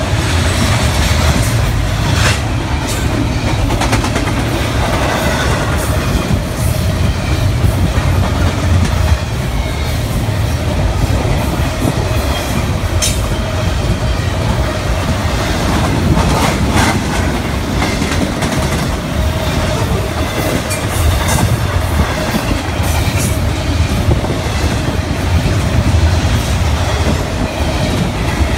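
Double-stack intermodal freight cars rolling past on the rails: a steady, loud rumble of steel wheels with a clickety-clack and occasional sharp clicks as the wheels pass joints.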